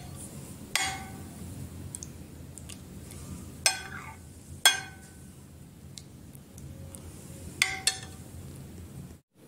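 Metal spoon clinking against a porcelain soup bowl: five light ringing clinks spread out, the last two close together, with a faint low hum between them.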